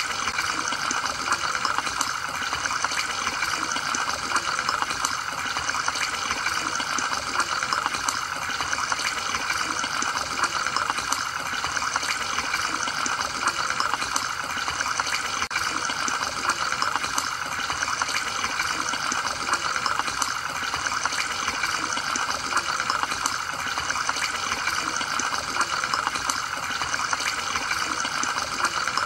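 Aquarium water bubbling and trickling steadily, with a constant patter of small splashes from the tank's filter and aeration running.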